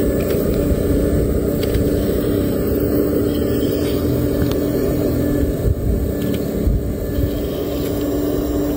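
Radio-controlled hydraulic excavator running, its electric pump and motors giving a steady low drone with a constant hum while the arm and bucket dig.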